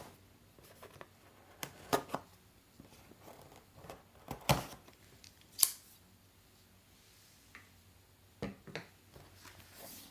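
Smartphone retail box being opened by hand: a few clusters of sharp clicks and snips, like the seal being cut, as the cardboard box and its lid are handled.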